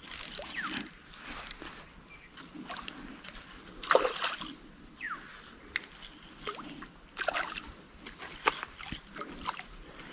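Fish splashing and thrashing at the surface of a pond on a pole-rod line, in short separate splashes, the sharpest about four seconds in. A steady high-pitched whine runs underneath.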